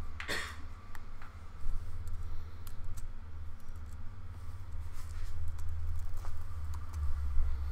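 Scattered key presses and clicks on a laptop keyboard, a few at a time, over a steady low hum.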